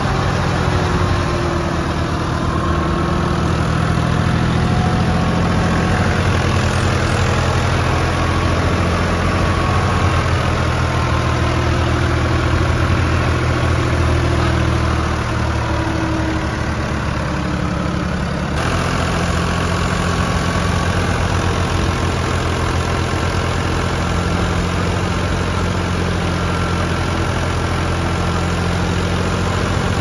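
Farm tractor's diesel engine running steadily at a constant speed, heard close from the driver's seat, with a sudden change in tone about two-thirds of the way through.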